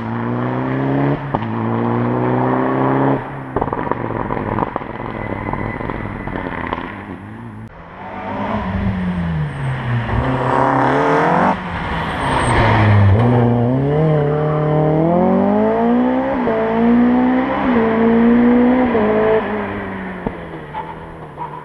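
Rally car engines at high revs. The revs climb in steps, each broken off at a gear change, and the first run fades about a third of the way in. A louder run follows, its revs falling as it brakes, then climbing again through several upshifts; it is loudest about halfway and fades near the end.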